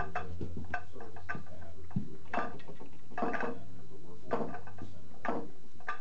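Pool balls clacking against each other as they are packed into a triangle rack: irregular sharp clicks and knocks, the louder ones about a second apart, over a low steady hum.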